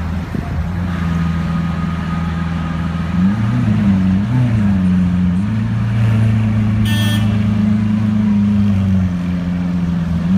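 Lamborghini Aventador Roadster's V12 running at low revs as it crawls off. It gives two short throttle blips about three to four seconds in, then holds a steady, slightly higher note as it pulls away.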